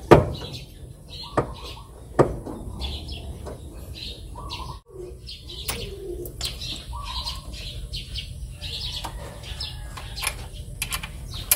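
A few sharp metallic clicks as a small wrench works the bleeder screw on a clutch slave cylinder while the clutch hydraulics are bled, the loudest right at the start. Birds chirp and coo throughout.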